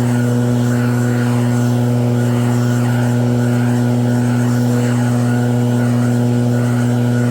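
EB7660RED snowblower's petrol engine running at a steady speed, a loud constant hum that does not change.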